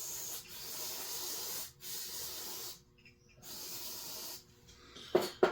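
Aerosol cleaner sprayed in about four hissing bursts of roughly a second each, with short breaks between them, washing a chainsaw carburetor part clean.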